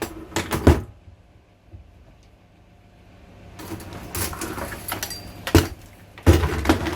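Knocks, scraping and clatter of a burnt-out fan heater's parts being handled and pried at, its melted plastic stuck to the motor. A few knocks at the start, a quiet pause of two to three seconds, then steady scraping with a sharp knock and a heavier thud near the end.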